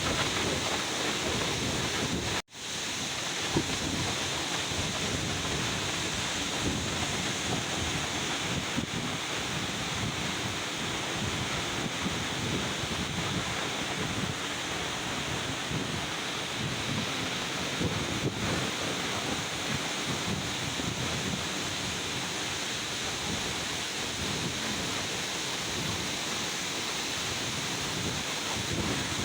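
Steady rushing roar of a waterfall, cutting out for a moment about two and a half seconds in.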